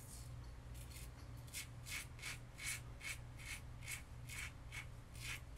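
RazoRock Lupo .95 double-edge safety razor cutting stubble on the neck in short, quick strokes, a faint scratchy rasp about three times a second.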